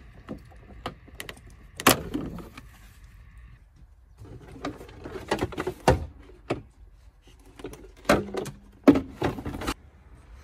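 Hard plastic interior trim panels of a Citroen Berlingo being prised and pulled off: clips popping loose and the panel knocking and rattling, with sharp knocks about two seconds in and again near the end.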